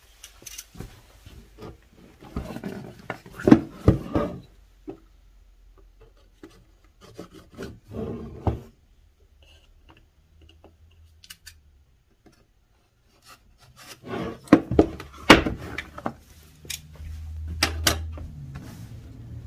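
A cardboard box being rubbed, scraped and slit open with a utility knife on a wooden table. The sound comes in several bursts of scraping and clicks with quiet gaps between them.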